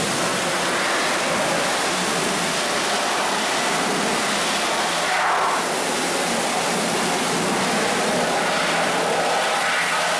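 Pressure washer jet spraying the underside of a car, a steady hiss of water blasting off the oily engine and oil pan as the degreaser is rinsed away.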